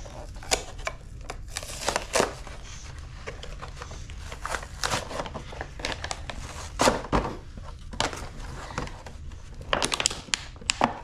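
Toy packaging being torn open by hand: crinkling and tearing of the cardboard backing and clicks and crackles of a clear plastic blister shell. The noises come irregularly and are loudest about seven seconds in and again near ten seconds.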